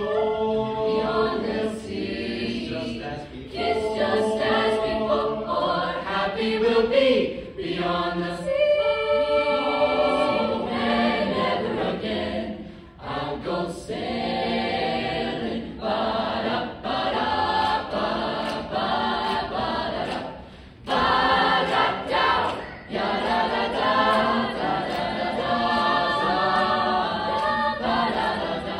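Mixed high-school show choir singing in harmony, boys' and girls' voices together, with a few brief sudden breaks between phrases.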